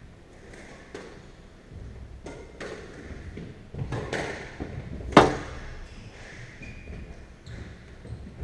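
Squash rally: the ball cracks off rackets and the court walls in irregular sharp knocks, the loudest about five seconds in.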